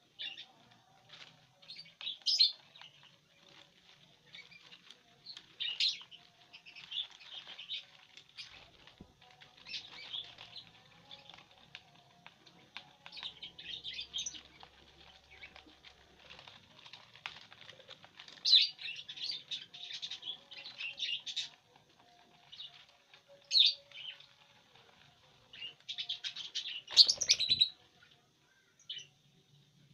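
Lovebirds chirping in short, scattered high bursts, with a brief loud flutter about 27 seconds in.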